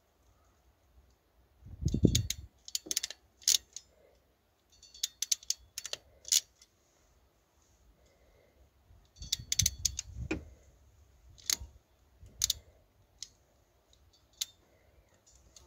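Hand crimping tool clicking as a terminal pin is crimped onto a harness wire: several clusters of sharp clicks, with a dull thump about two seconds in and again near ten seconds.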